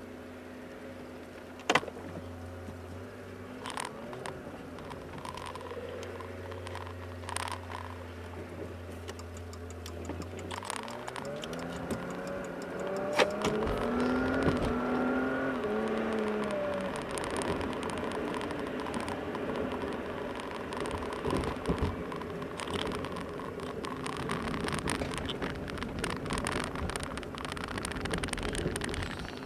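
Car engine idling, then pulling away with its engine note rising as it accelerates, followed by steady tyre and road noise while driving, heard from inside the cabin. A sharp click sounds about two seconds in.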